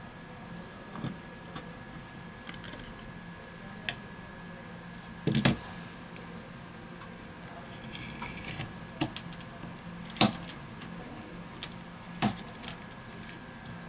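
Small scattered clicks and taps of a hand tool and loose parts being handled on a smartphone's metal midframe, with three louder knocks about five, ten and twelve seconds in.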